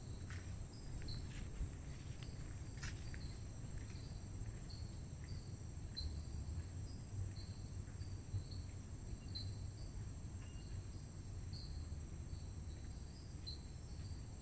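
Rainforest insects: a steady high-pitched insect drone, with short insect chirps repeating about twice a second. A few sharp clicks in the first three seconds.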